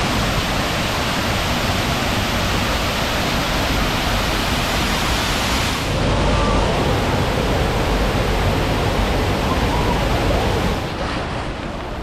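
Steady, loud rush of artificial waterfalls pouring into a rapids-ride channel. The sound shifts about halfway through and drops somewhat near the end.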